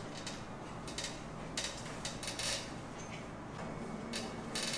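Scattered light clicks and taps of someone eating a meal, over a low steady background, with a faint steady hum coming in during the second half.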